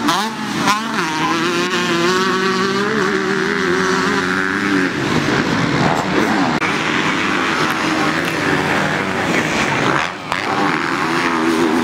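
Racing engines revving hard as several vehicles lap a race track, their pitch rising and falling with throttle. The engine notes stand out clearly in the first few seconds, then blur into a steadier mixed roar, with a brief lull about ten seconds in.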